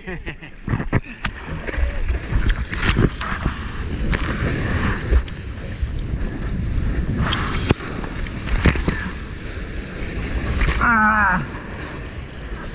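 Seawater splashing and rushing close to the microphone as a surfer paddles with his hands into a small wave and rides the breaking whitewater, with wind buffeting the microphone. A short vocal cry falling in pitch comes near the end.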